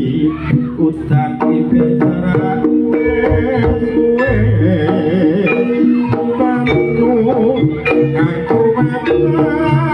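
Live Javanese campursari jaranan music: kendang hand drums beating under held melodic notes, with a wavering sung or played melody line.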